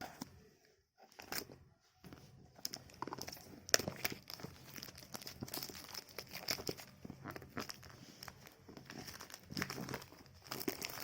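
Plastic shrink-wrap being torn and peeled off a smartphone box, crinkling and crackling irregularly. A few separate crackles come in the first two seconds, then it turns to dense crackling.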